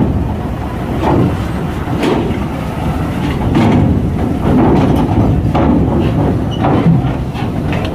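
Heavy truck's diesel engine running as it rolls slowly off a ferry onto the dock, with irregular metallic clanks and rattles every second or two.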